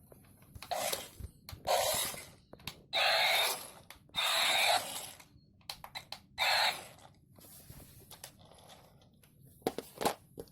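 Remote-controlled toy dinosaur's built-in sound effect: about five short roars through its small speaker, each under a second, followed by a few sharp plastic clicks near the end.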